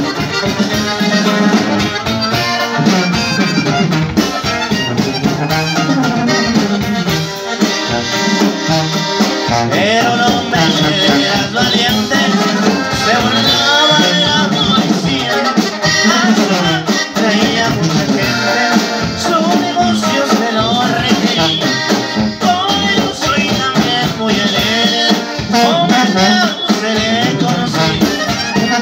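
Live norteño-style band playing a corrido: accordion melody over sousaphone bass, acoustic and electric guitars and a drum kit.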